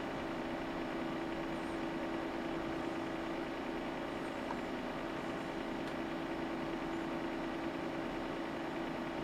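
Steady hum and whir of running bench test equipment, with an unchanging low drone.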